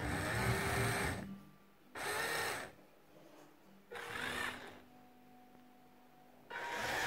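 Small electric motor and plastic gearing of a Mould King 13106 remote-control forklift whirring in four short runs, raising the fork mast on its cords.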